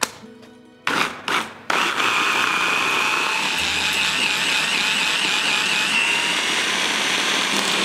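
Electric hand blender with a mini chopper bowl blending herb butter of softened butter and fresh parsley: two short pulses, then a steady run with a wavering whine for about six seconds before the motor stops.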